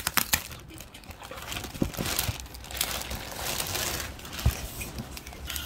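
Clear plastic packaging bag crinkling and rustling as it is gripped and pulled off a bag, with a few soft knocks.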